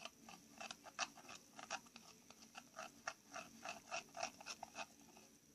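A glue-and-borax slime mixture being stirred with a toothpick in a bowl: a faint, even run of short clicks, about four a second, that stops about five seconds in.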